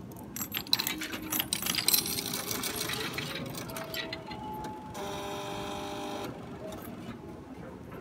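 Japanese railway ticket vending machine at work: a run of clicking and rattling from its mechanism over the first few seconds, then a steady motor whir of about a second and a half that stops abruptly.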